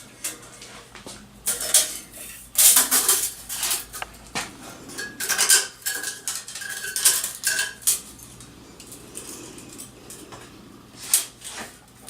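Irregular metallic clicks, clinks and rattles of a steel tape measure being handled and laid against a bandsaw wheel, in scattered clusters.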